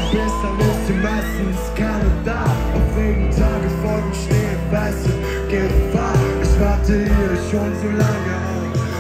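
Live band playing a pop-rock song over a concert PA: a steady drum beat, a sustained bass line, and guitars and keys.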